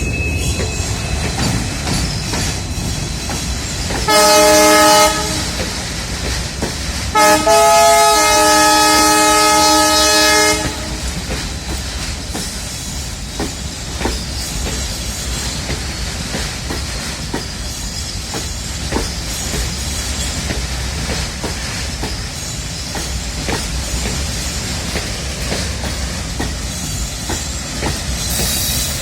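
WDG4 diesel-electric locomotive humming as it accelerates a passenger train. Its multi-tone horn sounds twice about four seconds in, first a short blast and then one about three seconds long, followed by a steady rumble with the clickety-clack of wheels over rail joints.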